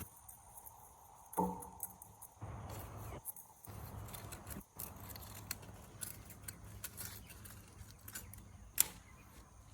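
Scattered small clicks and rustles of close handling, with a brief pitched, voice-like sound about a second and a half in and one sharp click near the end.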